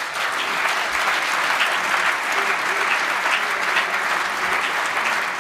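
Audience applauding, a steady, even clapping that holds without fading.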